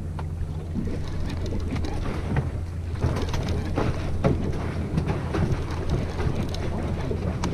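Boat's outboard motor idling with a steady low hum, under wind buffeting the microphone. Over it come irregular clicks and rattles as a conventional reel is cranked to bring up a fish.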